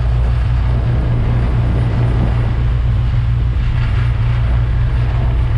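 Vehicle engine running steadily: a loud, constant low drone with a rushing noise over it, as heard while riding in the vehicle.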